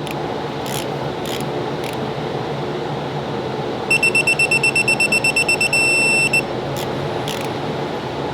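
An electronic beeper sounding a quick run of high beeps, about eight a second for under two seconds, and ending in one long beep. A steady hum runs underneath.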